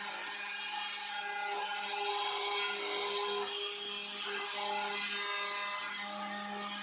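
Stepper motors of a 3D printer on a CNC machine frame whining as the axes move, the pitch shifting every second or so as moves start and stop, over a steady hum.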